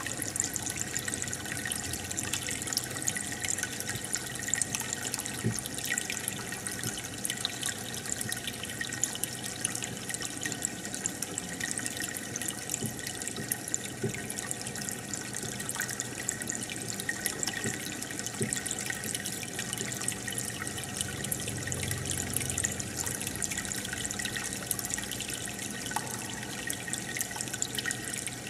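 Aquarium air bubbler and filter running: a steady stream of water bubbling, with many small pops.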